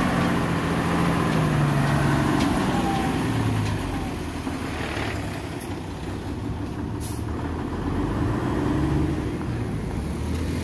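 Diesel engine of a Nissan UD truck running, its note dropping a little about three seconds in, with a brief high hiss about seven seconds in.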